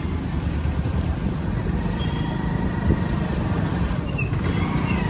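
Motorcycle engine running at low speed with steady rumble and road and wind noise, heard from the rider's seat in slow street traffic.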